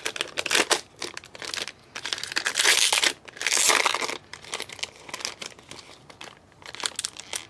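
Trading-card pack wrappers crinkling and tearing as packs are opened and handled, with many small irregular crackles and two louder spells about two and a half and three and a half seconds in.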